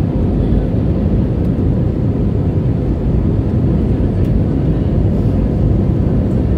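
Steady low rumble of a jet airliner's engines and airflow, heard from inside the passenger cabin in flight.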